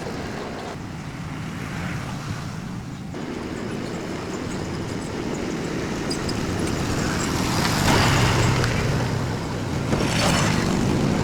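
A motor vehicle running: a steady rumble that grows louder, peaking about eight seconds in.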